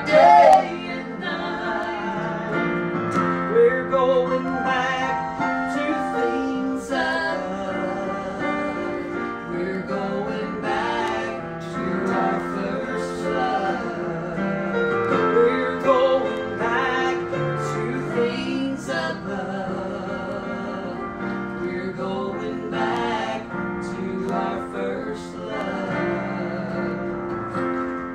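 A woman singing with vibrato, accompanied by an electric keyboard playing sustained chords.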